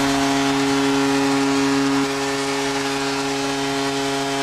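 Arena goal horn blowing one long steady blast over crowd noise, sounding for a home-team goal.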